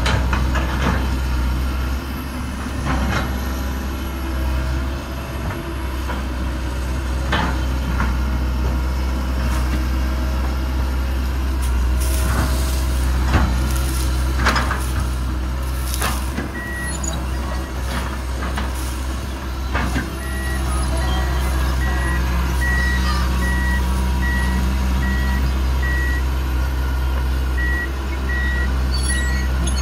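Komatsu PC200 excavator's six-cylinder diesel engine running steadily under load, with sharp cracks and knocks as the bucket pushes over a tree and tears at its roots. A little past halfway the machine's travel alarm starts beeping steadily as it tracks forward, with one short break near the end.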